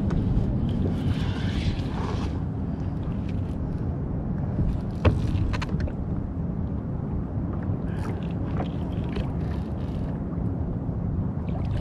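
Wind buffeting the microphone and water moving around a kayak on open sea, with a few sharp knocks or clicks. The loudest knock comes about five seconds in.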